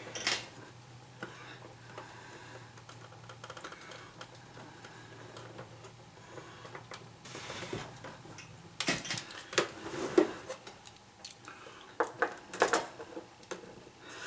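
Plastic parts of a humidifier being handled and fitted back together: irregular clicks, knocks and clatter, with a short rustle about halfway and denser bursts of clicking near the end.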